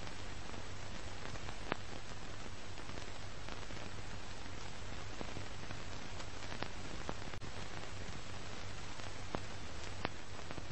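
Steady crackly hiss with a low hum and scattered faint clicks and pops, an old-film style surface-noise effect.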